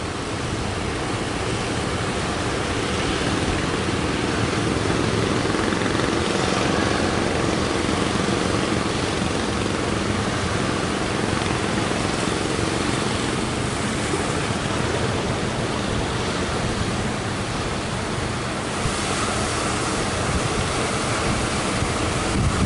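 Strong wind blowing on the microphone over breaking surf at a beach, a steady roar of noise with no pauses.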